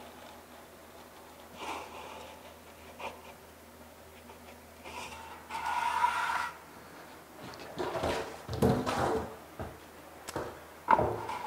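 Steel flat trowel scraping and knocking against Kerdi membrane as it is pressed into thinset, squeezing excess mortar out at the edge. There is a scrape about six seconds in, a cluster of knocks and scrapes around eight to nine seconds, and a sharp click near the end.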